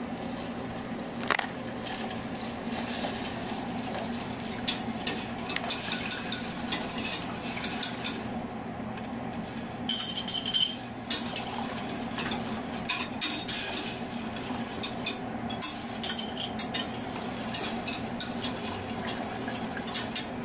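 Metal wire whisk stirring and clicking against the sides of a stainless steel saucepan as cornstarch slurry is whisked into boiling sauce to thicken it, with the sauce bubbling underneath. The clicking eases off for a couple of seconds about eight seconds in, over a steady low hum.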